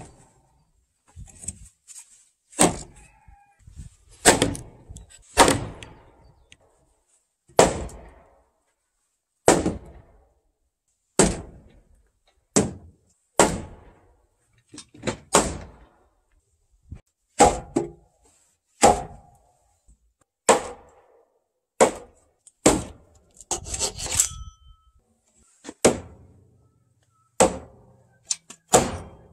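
Large wooden mallet striking timber joinery: a series of loud wood-on-wood blows, roughly one every one to two seconds, some landing in quick pairs, as the joints are driven together.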